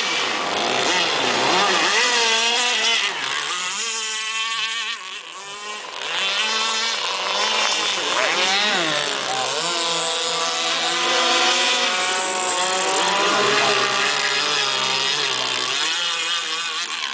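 Two-stroke gas engine of an RC race boat running at high revs, its pitch rising and falling as the boat passes and turns. It dips in loudness about four to six seconds in, then picks up again.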